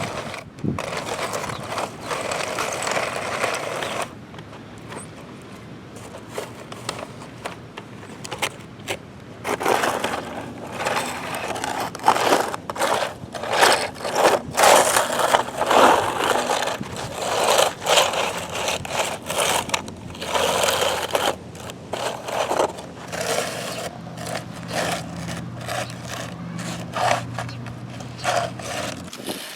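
Dirt and gravel scraping and crunching in quick, irregular strokes as a steel toy digger is worked through the ground.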